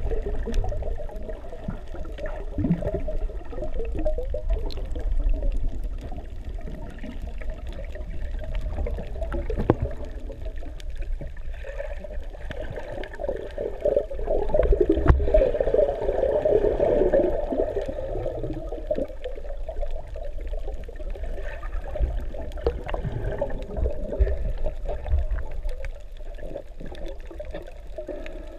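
Water sounds picked up by a camera underwater: a muffled rushing and low rumble with many small scattered clicks, swelling for a few seconds around the middle.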